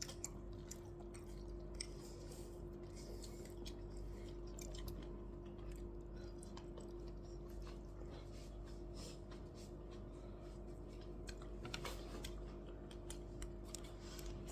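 A person chewing food close to the microphone, with many small crunching and clicking sounds scattered through, over a steady low electrical hum.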